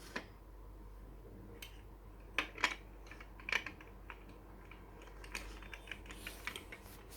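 Plastic Lego pieces clicking and clattering as they are handled and fitted together, in irregular taps, the loudest ones about two and a half and three and a half seconds in, with a run of lighter clicks near the end.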